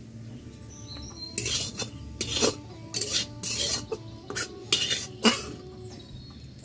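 Metal spatula scraping and stirring in a black kadai (Indian wok), metal on metal, in about seven short strokes at irregular spacing, some in quick pairs.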